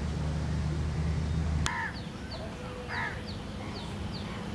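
A crow cawing twice, about a second and a half apart, over small birds chirping in the background. A steady low rumble stops abruptly just before the first caw.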